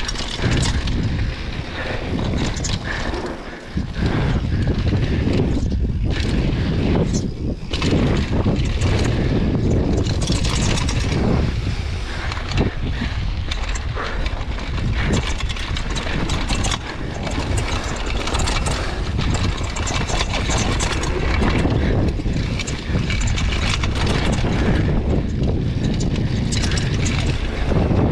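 Downhill mountain bike riding fast over a dry dirt and gravel trail: tyre roar and wind rushing over the microphone, with the bike rattling and clattering over bumps.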